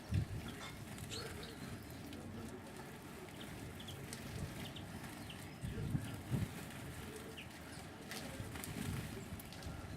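Small garden birds chirping in short, scattered calls at a feeder, with a few louder low thumps, the loudest about six seconds in.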